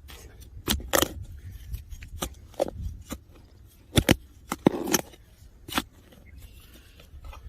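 A hand digging tool cutting and scraping into soil while a metal-detector target is dug out: a string of sharp, separate scrapes and knocks, about ten in all, the loudest cluster around four to five seconds in.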